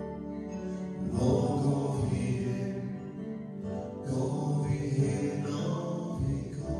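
Live music from a keyboard-led trio with sung vocals. A sustained low keyboard chord runs underneath, and the music swells louder about a second in before settling back to the held chord near the end.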